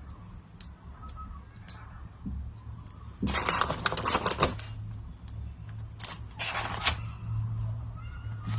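Packing sounds: plastic packaging and card sleeves rustling in two longer bursts, with scattered small clicks and taps in between, over a low steady hum.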